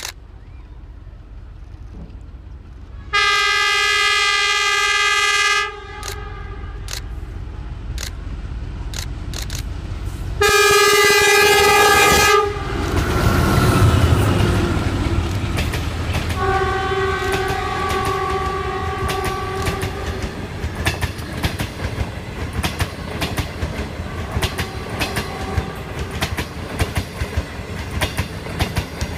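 A DF11 diesel-electric locomotive hauling a passenger train approaches and passes. Its horn sounds two long blasts, about three seconds in and again about ten seconds in, and its engine rumble peaks as it goes by. Then the coaches' wheels click steadily over the rail joints, with one more fainter, lower horn blast after the locomotive has passed.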